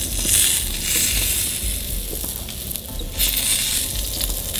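Thick ribeye steak sizzling on hot grill grates over charcoal in a Weber kettle, a steady crackling hiss. This is the high-heat sear stage of a reverse sear, with the steak close to done.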